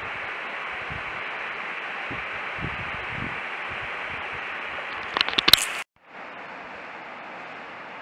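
Small waterfall splashing down a rocky stream gully, a steady rush of falling water. A little after five seconds come a few sharp knocks, then the sound cuts off and a quieter steady hiss follows.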